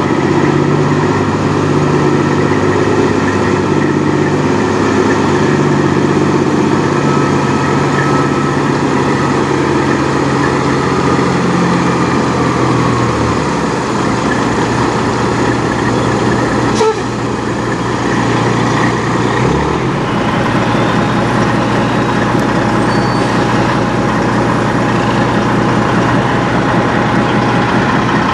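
Peterbilt 379 semi truck's diesel engine running as the truck maneuvers with its trailer, its speed shifting up and down, then settling to a steady lower idle about halfway through. A single short sharp sound comes a little past halfway.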